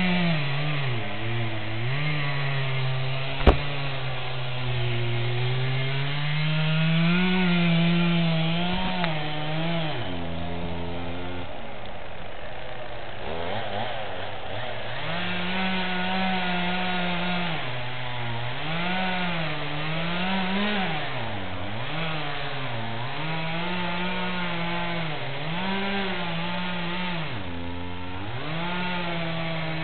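Chainsaw engine running, its speed repeatedly rising and falling as the throttle is worked, settling lower for a couple of seconds about ten seconds in. A single sharp click about three and a half seconds in.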